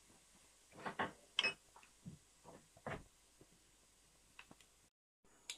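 Cumin seeds frying in hot cooking oil, giving faint scattered crackles and pops, most of them in the first three seconds and fewer after.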